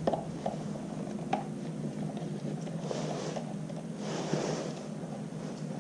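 Faint small clicks and soft scraping of a screwdriver working the screw out of a motorcycle battery's positive terminal, with a few light clicks in the first second and a half.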